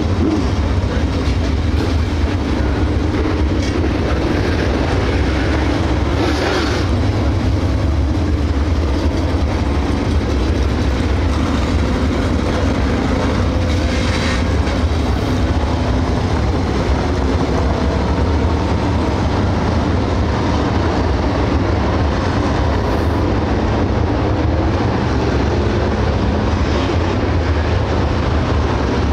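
A field of dirt late model race cars with GM 602 crate V8 engines running around the track in a steady, loud, continuous drone, with two brief louder swells about six and fourteen seconds in.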